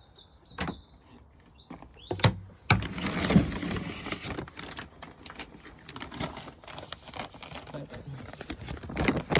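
Hens feeding: from about three seconds in, a dense patter of beaks pecking and feet scratching at feed, with many small clicks. Before it come a few short, high calls and one sharp click.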